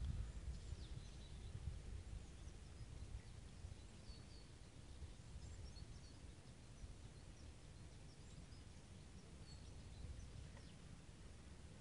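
Faint outdoor ambience: small birds chirping faintly and sporadically over a steady low rumble, which is a little stronger in the first couple of seconds.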